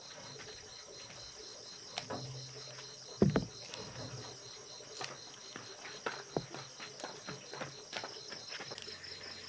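Night insects trilling steadily in a fast, even pulse, with scattered light clicks and knocks and one louder low thump a little over three seconds in.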